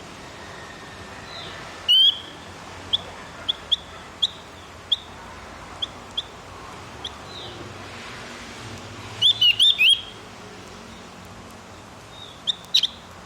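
Javan grey-throated white-eye (opior jawa) calling: short, sharp, high chirps at irregular intervals, with a quick loud run of several notes about nine seconds in, over a steady background hiss.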